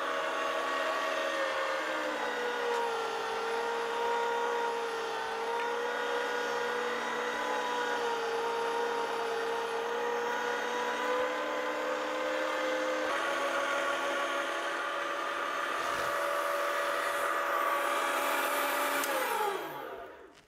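STX Megaforce Classic 3000 electric meat grinder running on its fast speed, a steady motor hum, as meat is pushed through the 1/8-inch grinding die. The pitch dips slightly about two seconds in. Near the end the motor winds down, falling in pitch, and stops.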